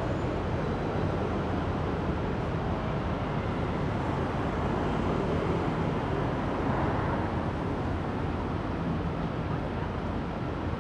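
Steady road and traffic noise from a car driving through city streets, with a low engine hum under an even rush of tyre and street noise.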